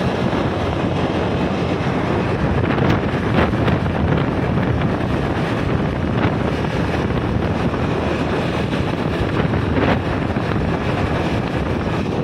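Steady wind rushing over the microphone of a KTM 250 motorcycle cruising at about 60 km/h, with the bike's single-cylinder engine running beneath it.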